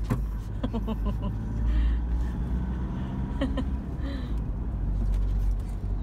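Low, steady rumble of a car's engine and tyres heard from inside the cabin while driving on the road.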